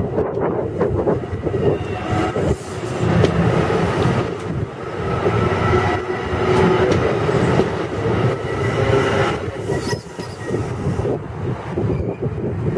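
Bilevel commuter train coaches rolling past at close range as the train leaves the station: a steady rumble of wheels on rail with clicks over the rail joints and a thin, steady wheel squeal.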